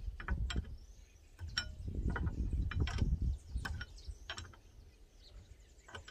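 Lug wrench on a car wheel's lug nuts: a string of sharp metallic clicks and ticks as the nuts are worked loose, over a low rumble in the first half.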